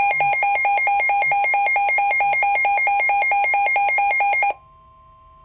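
Emergency alert alarm for a flood warning: loud, rapid electronic beeping, about seven beeps a second, that cuts off about four and a half seconds in, leaving a faint steady two-note tone.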